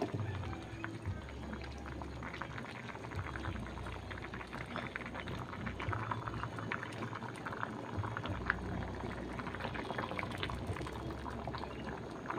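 A pot of coconut-milk jackfruit stew (ginataang langka) boiling, a dense steady bubbling and crackle, with a low hum that comes and goes underneath.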